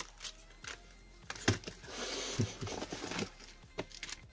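Plastic packaging crinkling and rustling as a small packet is handled and opened, with a few short sharp clicks about a second and a half and two and a half seconds in.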